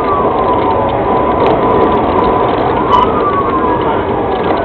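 Police sirens wailing, their pitch rising and falling slowly, with two wails overlapping in the second half. Underneath is the steady road and engine noise of a patrol vehicle driving at about 80 mph.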